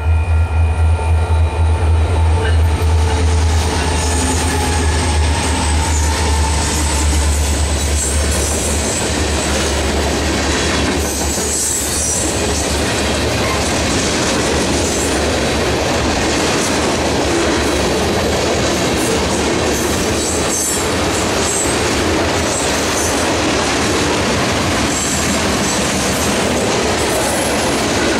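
Freight train passing through a grade crossing. The low diesel drone of the lead EMD SD70ACe and SD70M locomotives is loud for the first several seconds, then fades into the steady rolling noise of covered hoppers and tank cars going by on the rails.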